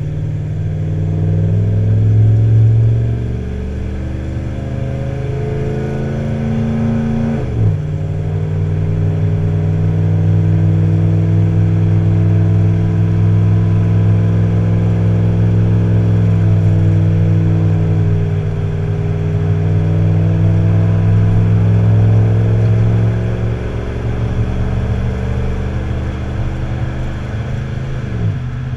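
Tow vehicle's engine working under the load of a boat trailer, pulling through the gears. The engine note climbs, drops sharply with a gear change about seven seconds in, holds steady for a long stretch, then drops sharply again near the end.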